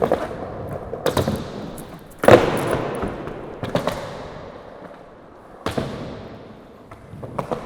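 Skateboard clacks and thuds on concrete during a flip-trick attempt: half a dozen sharp impacts, the loudest a little over two seconds in. Each impact fades off into a rolling rumble.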